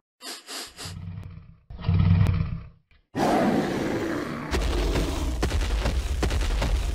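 Dinosaur roar sound effects. A few short high calls and a brief low growl come first, then a long, loud roar starts about three seconds in and runs on with a deep rumble underneath.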